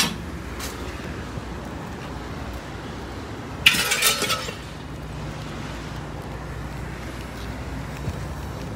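Junk dumped from a truck onto a concrete yard: a single sharp knock at the very start, then about four seconds in a clattering crash lasting under a second.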